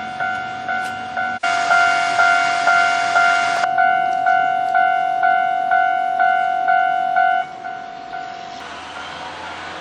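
Japanese level-crossing warning bell ringing its repeated electronic 'kan-kan' about twice a second, then stopping about seven seconds in. A rushing noise runs under it for about two seconds early on, and a softer steady rush follows after the bell stops.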